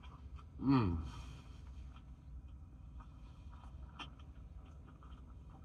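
A man's short "mmm" of enjoyment while eating, falling in pitch, about a second in, then faint clicks and rustles over a low steady hum.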